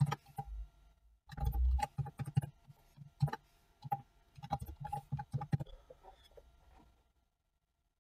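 Computer keyboard being typed on: quick, irregular key clicks with dull thumps, starting about a second in and stopping about six seconds in.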